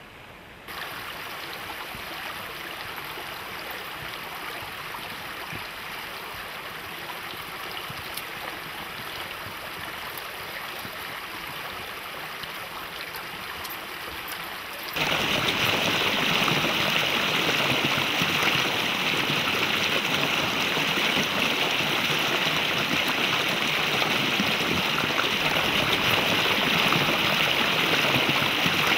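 Small mountain creek running over rocks, a steady rushing of water that jumps much louder about halfway through.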